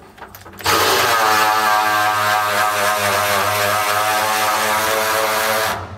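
Cordless drill running steadily at one speed for about five seconds: it spins up with a slight rise in pitch just under a second in and stops abruptly near the end.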